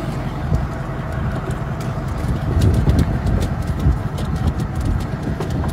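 Pickup truck driving, a steady low rumble of engine and road noise, with a few light clicks on top.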